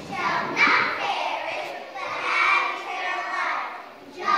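A group of young children singing together in unison, in phrases about a second long.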